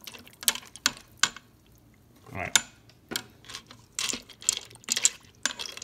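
Slotted plastic spoon stirring penne in broth in a stainless steel Instant Pot inner pot, knocking and clicking irregularly against the pot. The noodles are being pushed under the liquid.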